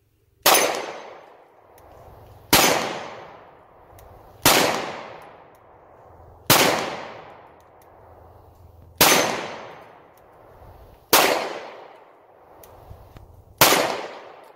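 Seven 9mm pistol shots from a Polymer 80 Glock-pattern handgun, fired one at a time about two seconds apart, each trailing off in a long echo.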